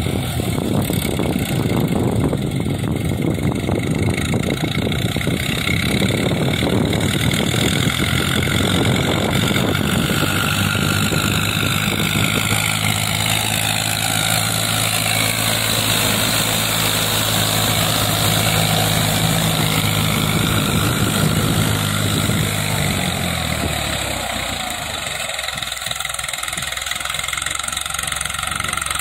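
Eicher 380 tractor's diesel engine running steadily as it puddles a flooded paddy field on cage wheels. About three-quarters of the way through, the steady engine note drops away.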